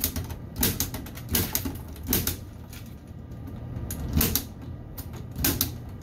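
Punch-down tool seating Cat6 wires into the rear terminals of a patch panel: about seven sharp clicks at irregular intervals.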